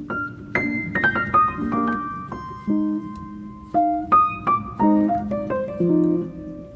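Background music: piano or electric-piano notes played over sustained lower chords.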